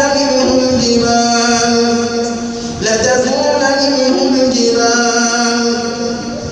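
A man's voice reciting the Quran in melodic tajweed style, drawing out long held notes in two phrases with a short breath about three seconds in.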